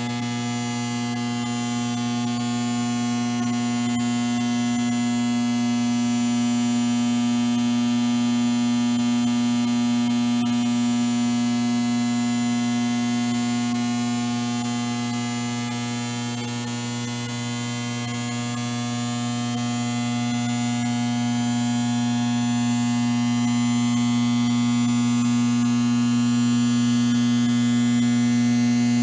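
Steady electrical hum: a strong low buzzing tone with many higher overtones and a faint wavering hiss above it. It eases slightly about halfway through and then swells again.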